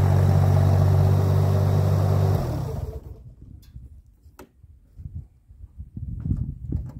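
Mini excavator's Kubota diesel engine running steadily, then shut off about two and a half seconds in and dying away within half a second. Afterward there is a sharp knock and scattered low thumps as the operator gets up and climbs out of the seat.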